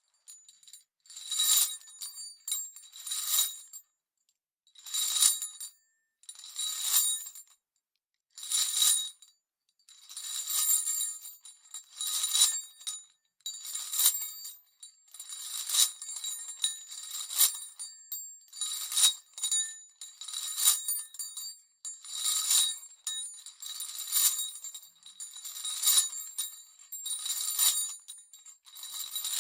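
Heavy chains jangling and rattling in step with walking, one jangle per footstep with a ringing metallic tone and no footfall thud. The steps come about every two seconds at first, then faster and almost unbroken from about ten seconds in.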